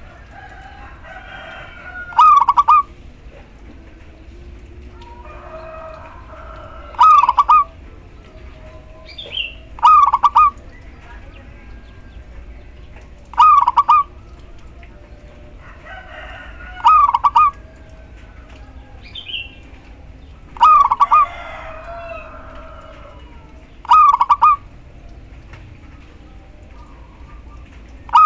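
Female zebra dove giving short, loud calls, repeated about seven times, one every three to four seconds: the call a hen uses to draw males. Softer, rougher bird calls sound between them.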